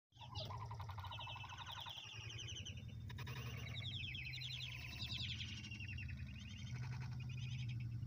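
Turkey poults peeping, a stream of short high chirps overlapping one another, over a steady low hum.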